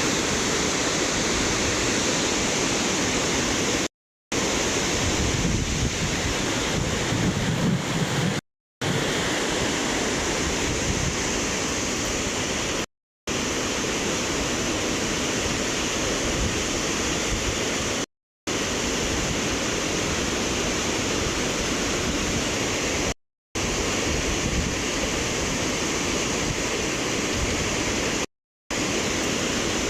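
Waterfall water rushing in a steady, dense roar, broken by brief complete dropouts about every five seconds where short recordings are joined.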